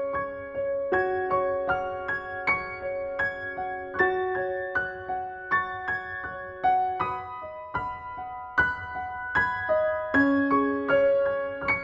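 Slow, gentle keyboard music: soft piano notes struck one after another, each ringing and fading, about two a second.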